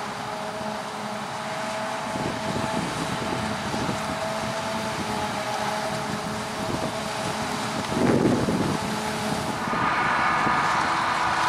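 Claas Jaguar 970 forage harvester chopping maize, with a tractor running alongside: a steady machine drone with a hum over a rushing noise. About eight seconds in there is a louder rush, and near the end a higher whine comes in.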